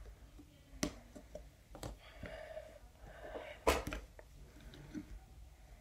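Trading cards and torn wrapper pieces handled on a tabletop: a few sharp taps, the loudest about four seconds in, with faint rustling between.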